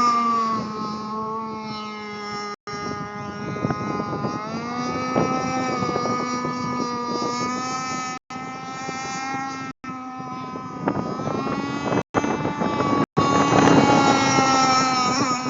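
Radio-controlled model boat's motor running at speed with a high, buzzing whine whose pitch drifts up and down as the throttle and distance change, louder near the end. The sound cuts out completely for an instant several times.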